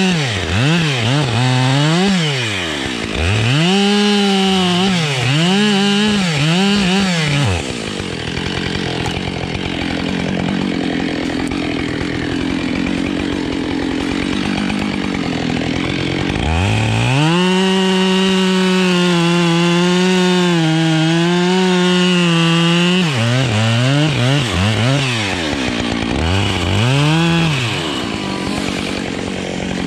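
Husqvarna 572 XPG two-stroke chainsaw revving up and down in quick bursts, then a quieter stretch of about eight seconds, then held at high revs for about six seconds as in a cut, then blipped up and down again. The saw is new and not yet run in, which the owner says makes it sound somewhat different.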